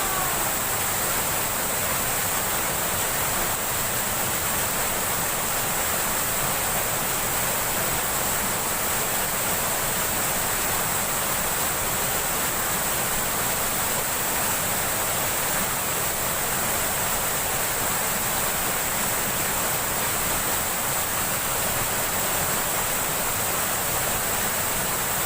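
Rushing river water: a steady, even rush with no break or change.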